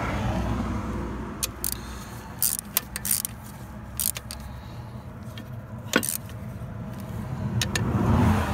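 Scattered metallic clinks and clicks of hand tools working on the A/C compressor's mounting bolts. They sit over a steady low rumble that swells near the end.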